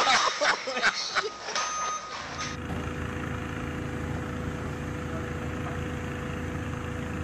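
Lumber clattering down from warehouse racking, a run of sharp knocks and bangs over the first two seconds. This gives way to a steady low mechanical hum.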